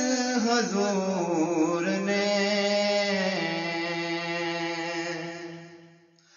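A man singing a naat (Urdu devotional song) in a solo voice: winding ornamented runs, then one long held note that fades away about six seconds in.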